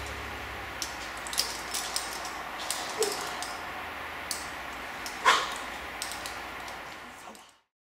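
Quiet outdoor ambience with scattered light clicks and one short, louder call about five seconds in, after the last of the music dies away; the sound fades out just before the end.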